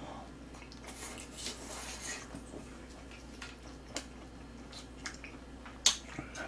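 A person chewing food with wet mouth sounds, and chopsticks clicking against dishes as food is picked up; the loudest sound is one sharp click about six seconds in.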